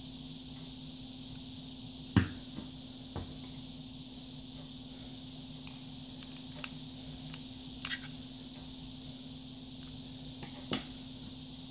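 Sharp clicks and light metal taps from handling a Smith & Wesson M&P45 Shield pistol, as a small pick is poked into the open ejection port to press down the sear deactivation lever for takedown. The loudest click comes about two seconds in, with a few fainter ones after it, over a steady low hum.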